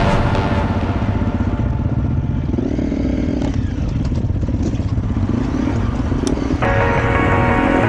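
Motorcycle engine running under a rider, its pitch rising and falling as the throttle opens and closes. Background music comes back in near the end.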